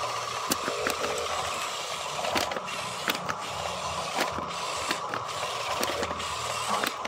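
Small electric motors and gearboxes of a toy RC excavator and dump truck whirring steadily as the excavator's arm and the truck move, with scattered sharp clicks and ticks from the gears and the bucket working the dirt.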